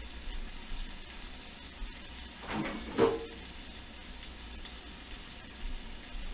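Bacon sizzling in a frying pan, a steady hiss of spitting fat. About three seconds in comes one brief, louder sound from the room.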